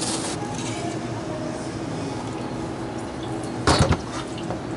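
A new half-horsepower hermetic refrigeration compressor being lifted out of its cardboard box: cardboard scraping and rustling, then a short, loud clatter near the end as the compressor comes free of the box.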